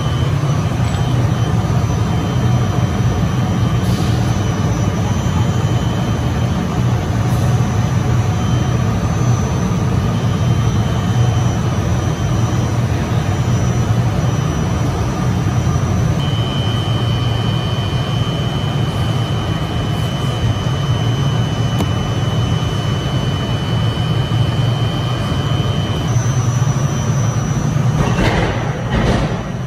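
Thread-rolling machine running as it rolls threads onto socket cap screws: a loud, steady low mechanical hum, with a thin high whine through the middle stretch.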